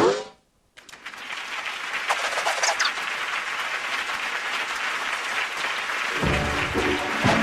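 Audience applause that swells up about a second in and keeps going, with music notes coming in about six seconds in. It opens with a short cartoon vocal sound falling in pitch, then a brief silence.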